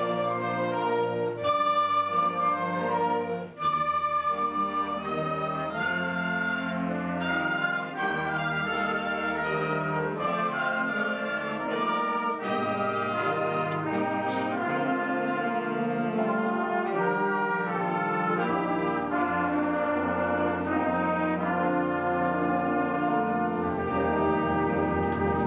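Eighth-grade concert band playing live, brass to the fore over woodwinds, in sustained, shifting chords, with a brief break about three and a half seconds in.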